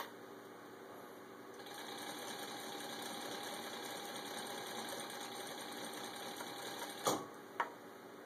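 Sewing machine running steadily for about five seconds, stitching through leather, then stopping with a sharp knock and a click near the end.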